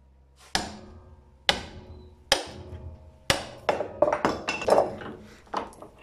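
Hammer blows on a grey cast iron casting clamped in a steel bench vise, each strike ringing metallically, until the cast iron fractures beside the weld. There are heavy blows about a second apart, then a quicker run of lighter metallic knocks and clatter.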